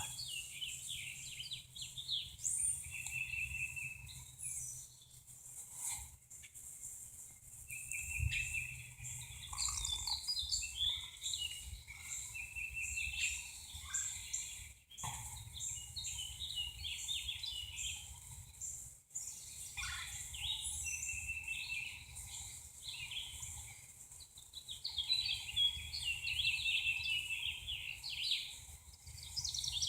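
Several songbirds singing outdoors, short chirps and trills from different birds overlapping throughout, with a faint low background hum.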